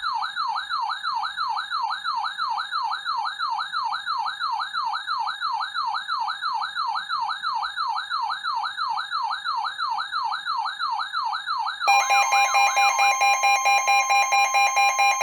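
Electronic siren with a fast falling sweep, repeating about three times a second. About twelve seconds in it changes to a louder, rapidly pulsing electronic alarm with several steady tones held together.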